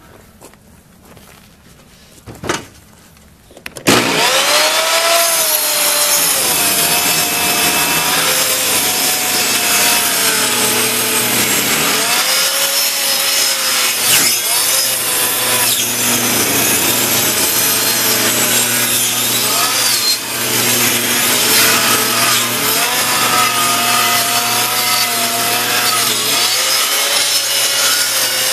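J.K.C. benchtop table saw cutting through a thick log round. After a couple of knocks it starts about four seconds in, then runs on as a loud, continuous rasping cut with a whine that wobbles in pitch as the wood is pushed through the blade.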